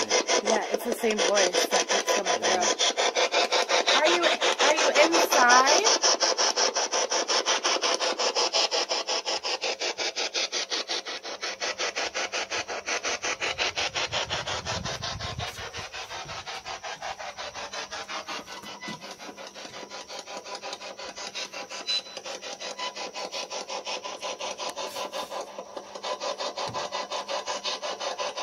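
Handheld radio with a telescopic antenna sweeping through stations as a ghost box: static chopped into rapid pulses several times a second, with brief snatches of broadcast sound, loudest about five seconds in.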